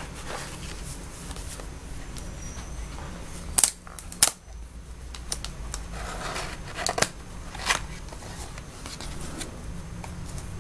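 Cardboard box of Marco Raffine colored pencils being handled and slid open: a run of small clicks and rustles, with two sharp knocks about three and a half seconds in and a few more clicks around seven seconds.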